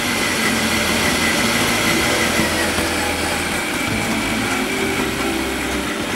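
Electric stand mixer running steadily, its dough hook kneading a yeast dough in a steel bowl, with a thin, high motor whine over the machine noise.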